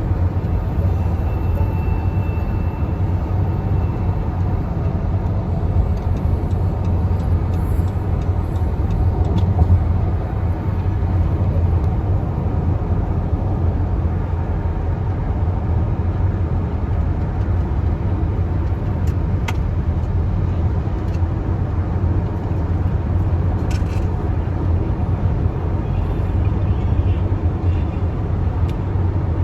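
Steady low road rumble and engine hum from inside a moving car, with a few faint clicks.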